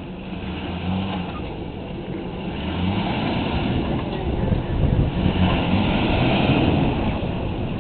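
Duramax turbo-diesel V8 of a GMC dually pickup running under heavy load as it pulls on a tow strap to free a stuck dump truck, getting louder about three seconds in as the throttle goes down.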